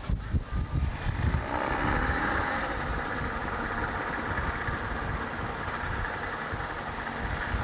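Diesel suburban railcar set's engines running steadily at the platform, a low rumble with a rushing noise that swells in about a second and a half in and then holds.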